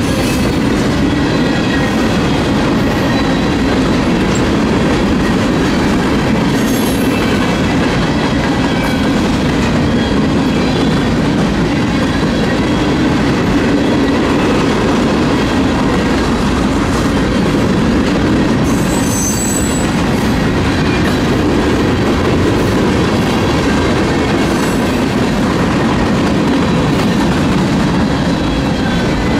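Union Pacific freight train cars rolling past, a loud steady noise of steel wheels on the rails with clickety-clack and a faint high wheel squeal now and then.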